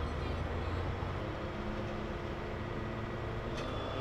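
Steady low rumble of an idling engine, with a single short click about three and a half seconds in.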